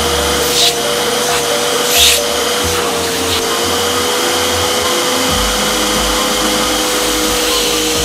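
Nilfisk Buddy II 12L wet-and-dry vacuum cleaner running steadily with its extension tube fitted: a constant rush of air with a steady motor whine. Two short hissing sounds come about half a second and two seconds in.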